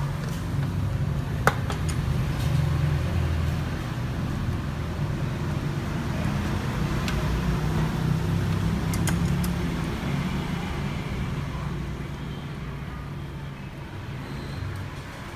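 Low, uneven rumble of background vehicle traffic. A sharp metallic click comes about one and a half seconds in, with a few lighter clicks later, as a small socket is worked onto the valve-cover bolts.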